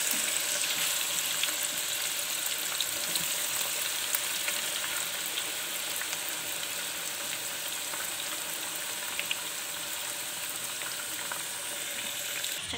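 Raw banana slices deep-frying in olive oil in a pan: a steady, dense sizzle with small crackles, growing slightly quieter.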